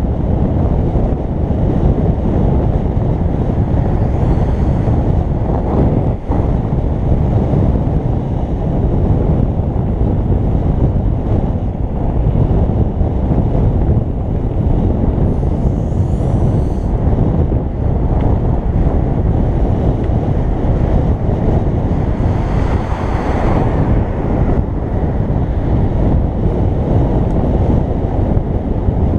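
Heavy wind buffeting the microphone while riding: a dense, steady low rumble that does not let up.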